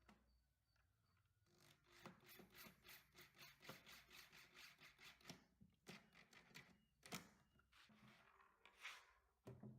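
Faint scraping strokes by hand on wood, quick and rhythmic at about three a second starting a second or so in, then a few separate strokes near the end.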